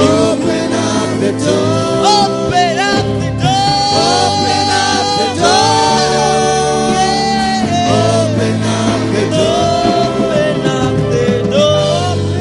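Gospel music: a voice sings long, sliding held notes with no clear words over steady instrumental backing.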